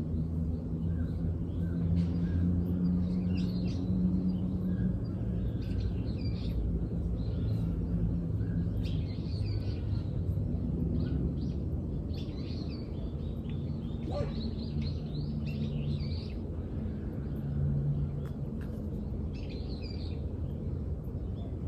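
Small songbirds chirping and singing in short repeated phrases, over a steady low outdoor rumble with a faint hum.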